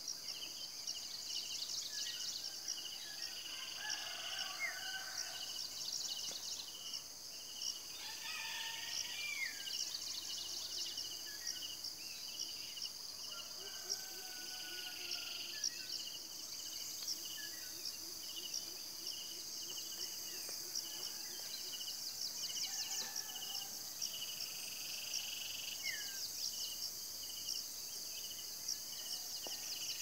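Insects chorusing: a steady, high, pulsing trill with a second, lower chirping that repeats in quick pulses. A few short bird calls come and go over it.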